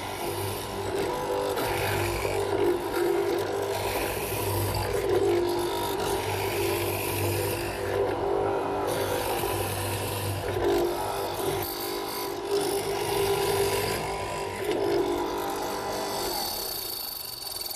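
Multico hollow chisel mortiser running, its electric motor humming steadily while the revolving auger and square chisel are plunged into the timber again and again, cutting with a rasping, chip-clearing sound that swells with each of about half a dozen plunges. The motor stops and the sound dies away near the end.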